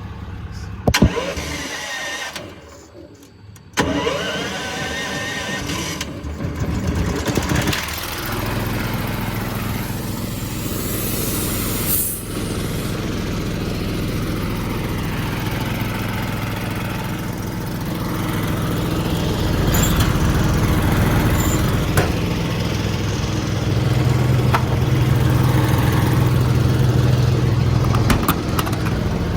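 An engine starts up and settles into a steady run, getting somewhat louder about two-thirds of the way through; a sharp knock comes first, about a second in.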